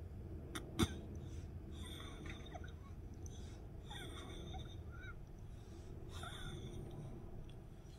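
Quiet room tone with a steady low hum, soft breaths about every two seconds, and two small clicks just under a second in.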